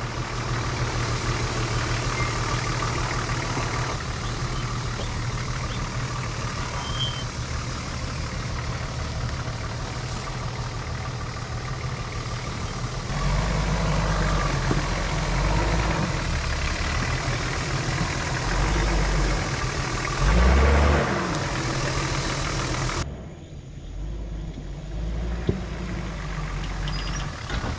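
An off-road 4x4's engine running steadily as it crawls over rough trail. It gets louder about halfway through, with a brief peak a little later, then drops back near the end.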